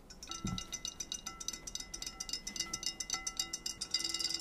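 Battery-powered robot fish toys swimming in a glass bowl of water, their small motors making a rapid, steady clicking that grows louder near the end.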